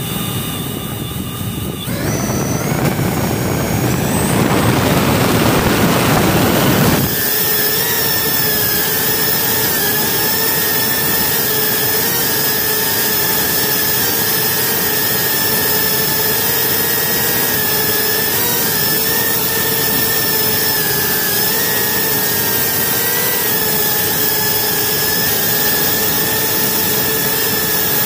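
GEPRC Cine Pro 4K FPV quadcopter's motors and propellers spinning up about two seconds in and running loud through the takeoff. From about seven seconds they settle into a steady high whine in flight that wavers slightly in pitch.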